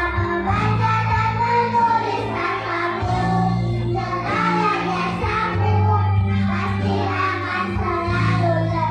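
Kindergarten children's choir singing together over instrumental accompaniment with sustained bass notes.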